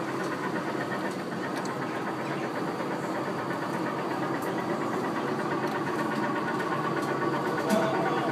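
Amusement-park tractor-ride car running steadily along its guided track, giving an even mechanical hum with a few faint clicks.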